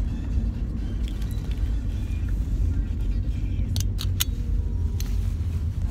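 Steady low road rumble inside a moving car's cabin. About four seconds in come three quick metallic clicks, then one more a second later, from the small metal chain and ring of a keychain being handled.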